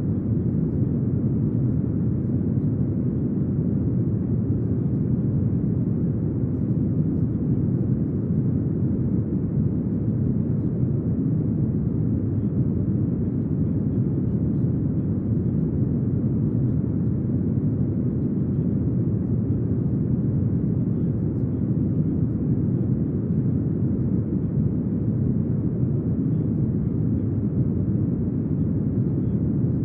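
Brown noise: a steady, deep hiss weighted toward the low end, unchanging throughout.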